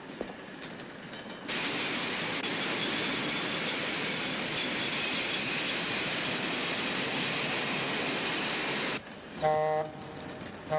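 Moving train running, a loud steady rushing noise that swells up about a second and a half in and cuts off abruptly near the end. Then come two short blasts of a train horn.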